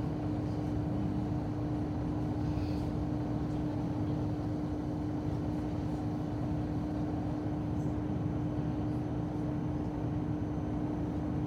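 Diesel railcar running steadily along the line, heard from inside the car: an even low rumble with a constant hum over it.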